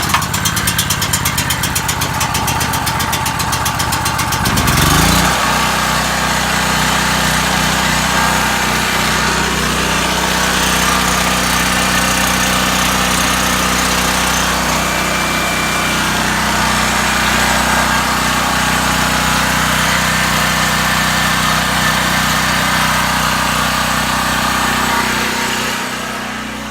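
New Powerhorse 4000 portable generator's engine starting on choke: it catches at once and runs rough and fast-pulsing for about five seconds, then revs up and settles into a steady run. It gets a little quieter near the end.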